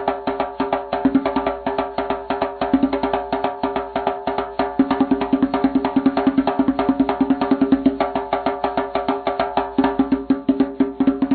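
Intro music with a fast, even beat of sharp, woodblock-like percussion over sustained tones.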